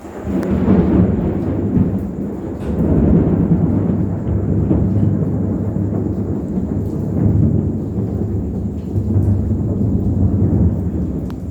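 A peal of thunder that breaks suddenly and rolls on in deep, wavering waves of rumble.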